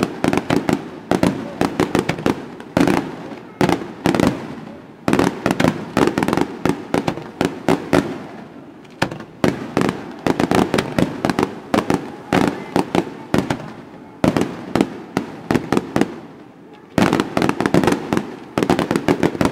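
Aerial fireworks shells launching and bursting in rapid volleys of sharp bangs, with a few short lulls between volleys.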